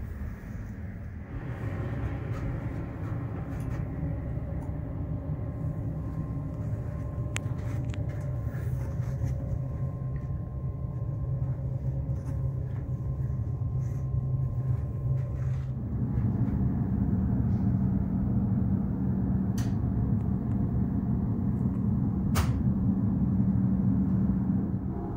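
Steady low hum and rumble inside a Rhaetian Railway electric train car, with a few faint clicks. The hum gets louder and deeper about two-thirds of the way through.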